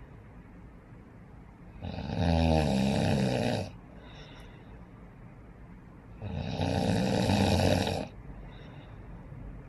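Snoring in deep sleep: two long, loud snores about four seconds apart, the first with a rattling buzz, each followed by a short, soft breath out.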